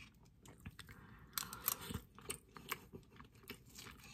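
A person chewing a hot, tender ham ball: quiet, irregular wet mouth clicks and smacks, a few a second.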